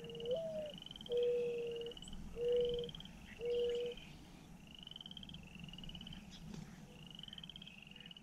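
Frogs calling at dusk: short, slightly rising, rattling trills repeat about once a second. Four low, steady tones of under a second each sound in the first half and are the loudest sounds.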